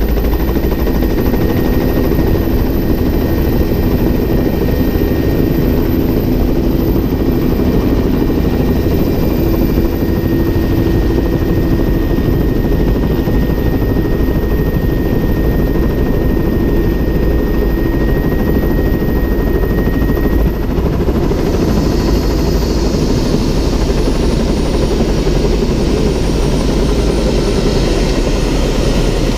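Helicopter engine and main rotor running loud and steady as it descends and sets down on the landing pad, picked up by a camera mounted outside the cabin. About two-thirds of the way through, a high whine starts to drop in pitch.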